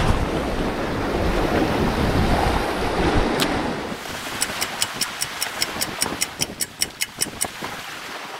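Wind buffeting the microphone over surf at the shore. About four and a half seconds in comes a steady run of about twenty sharp clicks, roughly seven a second, lasting about three seconds.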